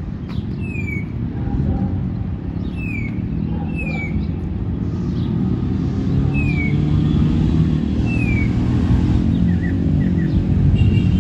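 A bird gives short, falling chirps every second or two over a steady low rumble of city traffic.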